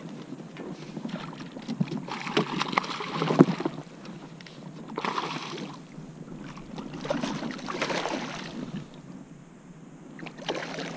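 Water splashing beside a kayak in several bursts of about a second each as a hooked bass is fought to the boat, with a few sharp knocks of gear against the hull.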